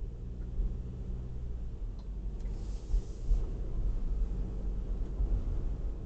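Steady low rumble of road and engine noise heard inside the cabin of a moving car, with a brief hiss a little before halfway.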